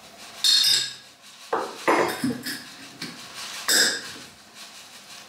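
Kitchen utensils clinking and scraping against a bowl as oats are measured in: a few sharp clinks with short ringing, about half a second in, around two seconds and near four seconds.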